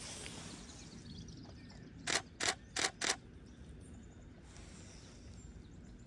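Canon EOS 6D Mark II DSLR shutter firing four times in quick succession, about three clicks a second, as a short burst of frames is taken.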